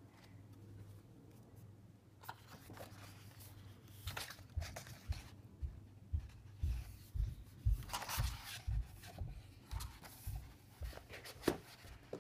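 A large hardcover book being handled: the cover swung open and stiff paper pages rustling and turning, starting about two seconds in. A run of soft low thumps comes through the middle.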